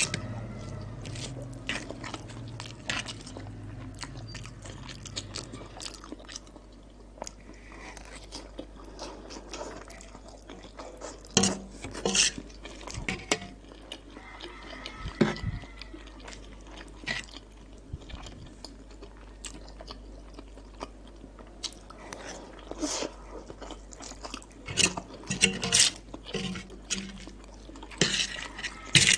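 Someone chewing and crunching Cheetos mixed with Indomie instant noodles, in irregular sharp crunches with louder bouts about halfway through and near the end.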